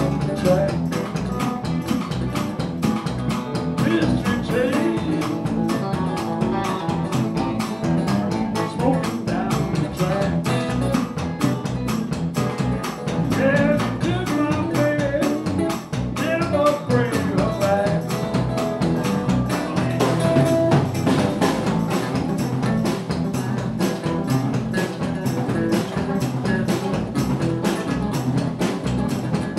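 Live blues band playing an upbeat number: electric guitars and drum kit, with a man singing into the microphone.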